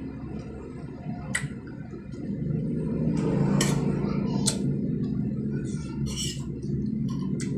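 Close-miked eating sounds: chewing with wet mouth noises, and a metal fork clicking and scraping against a ceramic plate of raw shrimp. Several sharp clicks are scattered through it, over a low steady hum.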